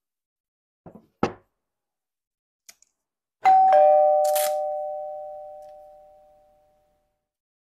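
A few light clicks from handling the packaging, then a two-note falling 'ding-dong' chime, a notification-bell sound effect, that rings out and fades over about three seconds, with a brief whoosh just after it starts.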